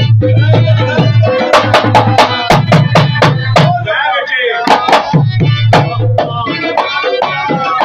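Live Pashai folk music: a harmonium holds steady notes while hand drums, a frame drum and a barrel drum, beat out a fast rhythm. About four seconds in the harmonium drops out briefly under a short wavering melodic phrase, then the drumming picks up again.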